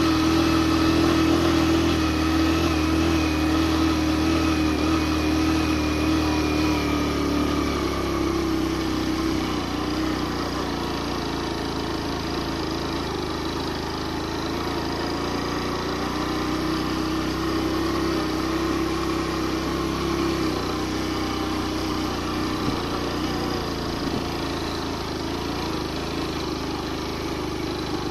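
Suzuki GN 125's single-cylinder four-stroke engine running hard at high revs in a low gear, climbing with a passenger aboard. The engine note drops about eight seconds in, rises again midway and eases off later. It is held high in the revs to keep from stalling, as the thin air at over 3000 m saps its power.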